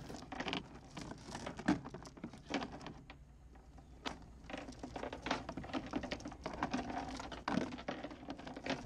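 5/16-inch high-test anchor chain being fed by hand into the anchor locker, its links clinking and rattling in quick, irregular clicks, with a short lull about three seconds in.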